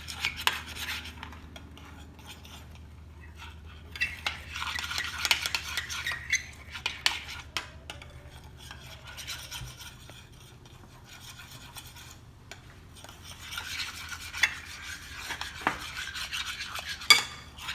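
A spoon stirring a slime mixture of glue and shaving foam in a pot, scraping and clicking against the sides. It comes in three bouts: near the start, from about four to seven seconds in, and again over the last few seconds.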